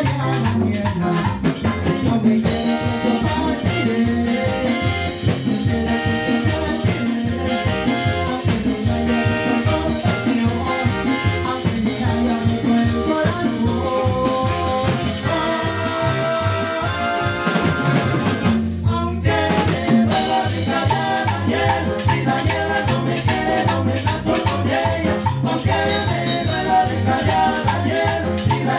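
Latin dance band playing: brass, drum kit and hand percussion over a steady beat, with singing. There is a short break in the band a little after two-thirds of the way.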